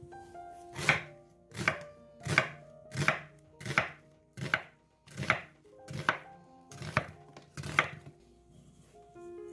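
Kitchen knife chopping on a cutting board: about ten separate strokes at a slow, even pace, roughly one every three-quarters of a second.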